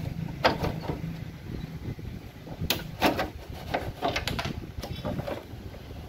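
The plastic rear cabinet of a 14-inch Sony CRT TV is handled and worked off, giving a string of sharp knocks, clicks and scrapes, more of them in the second half.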